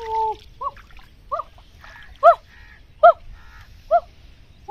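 An animal calling: a long held cry ends just after the start, then five short cries follow, about one a second, each rising and falling in pitch, the loudest near the middle.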